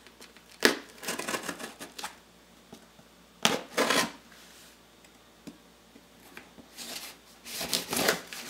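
A knife cutting and tearing at the tape and cardboard of a shipping box, in several short scraping, ripping bursts with pauses between them.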